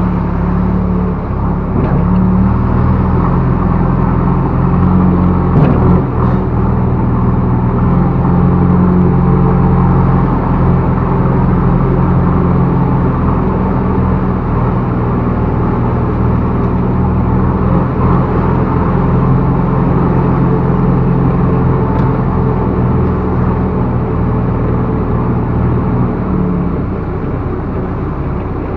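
Backhoe loader's diesel engine running steadily at work, with a couple of short knocks of the machine along the way.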